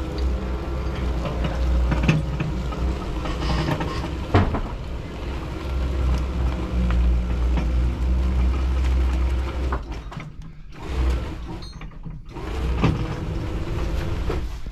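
Air compressor running steadily as it inflates the car's flat tyre, which has just sealed its bead and is taking air. The motor drops out briefly about ten seconds in, then picks up again, with a sharp knock about four seconds in.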